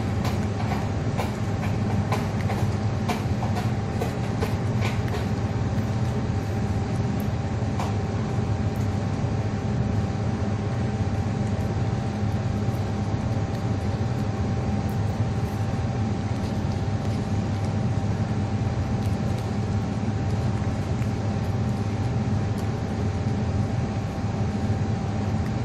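Steady low machine rumble with a constant hum, unchanging throughout. Over it, a cat chewing shredded chicken breast makes small sharp clicks during the first few seconds and once more a little later.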